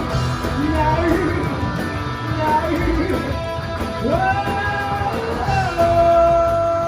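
Rock band playing a song, with electric guitar and singing; a long held note comes in near the end.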